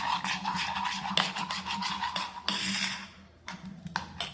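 Rapid clattering and scraping of metal utensils with a faint ringing tone, stopping about three seconds in, followed by a few separate clicks.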